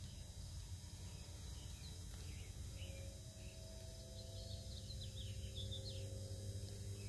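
Faint outdoor ambience: a low steady rumble with faint bird chirps from about three to six seconds in.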